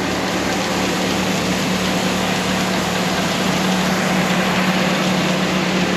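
Grain grinder and its auger running steadily as grain is augered into the grinder's tank, the grinding system bypassed. A constant machine hum with a low, even pulsing underneath.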